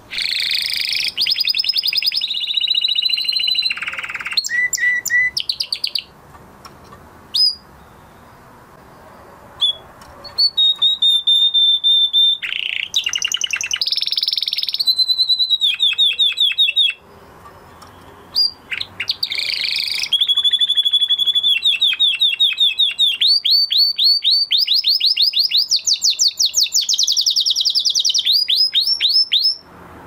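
Male canary singing: phrases of fast, high trills and repeated notes, broken by two short pauses, with a long run of rapid rising notes near the end.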